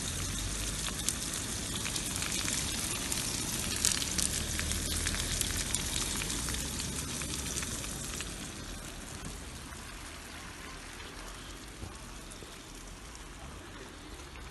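Sucuk (Turkish spicy sausage) frying in hot oil in a pan, a dense sizzle with fine crackles that eases off a little about halfway through.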